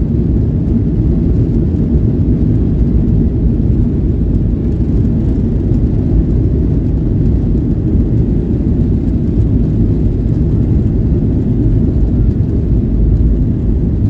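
Boeing 737-800 cabin noise: a steady, even low rumble of the CFM56 engines and airframe, heard from inside the cabin while the aircraft is on the ground.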